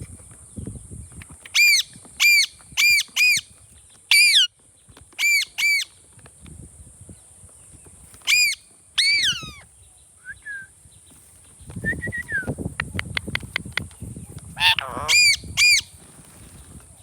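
Indian ringneck parrot giving short, piercing screeches in quick groups of two to four, some longer calls gliding down in pitch. A rapid run of sharp clicks comes about two-thirds of the way through.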